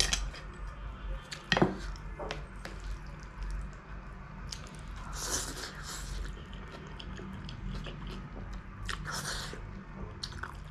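Close-miked eating sounds: noodles sucked in through the lips from chopsticks, with chewing and many wet mouth clicks. There are two longer slurps, about five seconds in and again near nine seconds.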